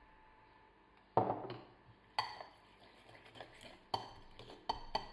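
Metal cutlery clinking against a glass jar and a clay bowl: one sharp, ringing clink about a second in, then a fork tapping and scraping around the bowl as it stirs pesto into mashed avocado, with a few more sharp clinks.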